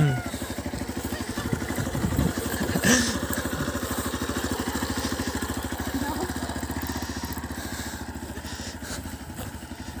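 Single-cylinder engine of a Hero XPulse motorcycle running with an even, rapid putter, with one short knock about three seconds in. It grows fainter near the end as the bike moves off.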